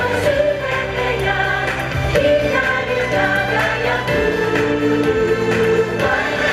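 Parade show music with a choir singing long held chords over a steady bass, the chords changing about every two seconds.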